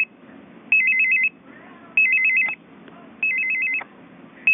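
Hospital bedside telephone's electronic ringer sounding: short bursts of a rapid two-tone warble, repeating about every second and a quarter. There are three full bursts, and a fourth begins at the very end.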